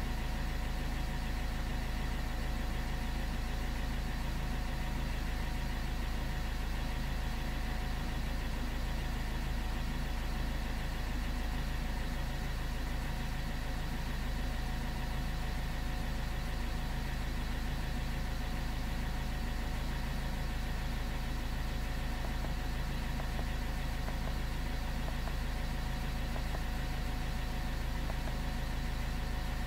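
A steady mechanical hum: a constant low rumble with a few thin, unvarying whining tones above it.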